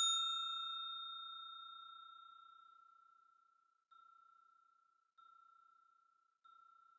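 A single bell-like chime, struck once, rings out and fades away over about two and a half seconds. Three very faint repeats of the same tone follow, about every second and a quarter.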